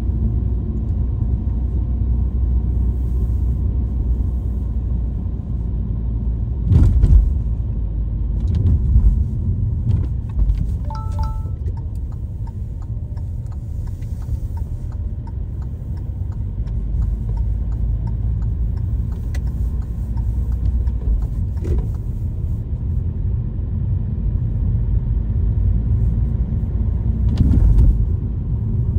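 Vehicle driving, heard as a steady low engine and road rumble from inside the cab. A few short knocks come through, strongest about seven seconds in and near the end, and there is a brief high beep about eleven seconds in.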